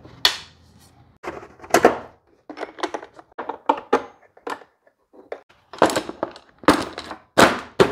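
Irregular clunks, knocks and rattles of plastic and metal parts being handled and fitted on a DeWalt DW735 thickness planer, with the top cover set back in place near the end.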